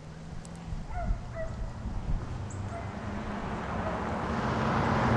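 A pickup truck approaching on the paved road, its engine and tyre noise growing steadily louder through the second half. A few faint short calls sound about a second in.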